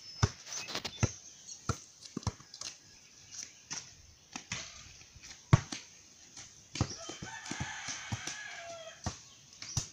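A basketball bouncing on hard dirt ground, giving irregular sharp thumps. From about seven seconds in, a rooster crows in the background.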